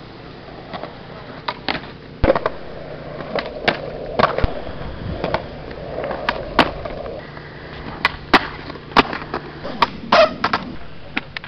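Skateboard on concrete: wheels rolling, with repeated sharp clacks from the tail popping and the board landing.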